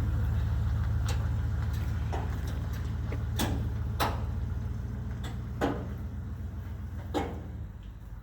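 1993 Chevy Silverado 3/4-ton pickup's engine running with a steady low drone that gradually fades, with a few sharp clicks or knocks over it, the loudest a little past halfway.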